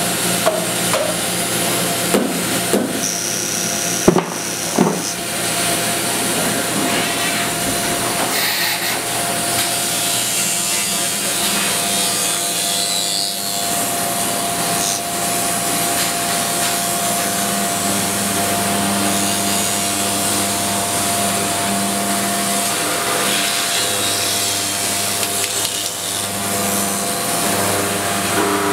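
A Bridgeport CNC milling machine's end mill cutting into laminated hardwood: a steady whirring cut with a constant whine. A few sharp clicks come in the first five seconds.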